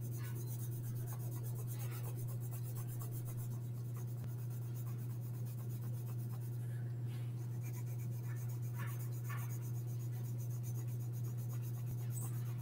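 Graphite pencil shading on paper with the side of the lead: soft, irregular scratching strokes as an area is filled in with an even medium tone. A steady low hum runs underneath.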